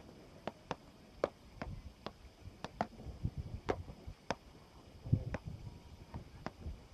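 Beach tennis paddles striking the ball in a fast volley drill: a quick, irregular string of sharp pocks, about two a second.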